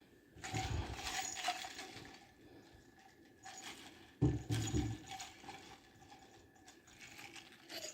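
Ice clinking and rattling in a highball glass with liquid sloshing, in two spells: one about half a second in and a louder one around four seconds in.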